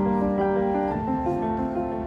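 Background music led by piano, a melody of held notes moving from one to the next.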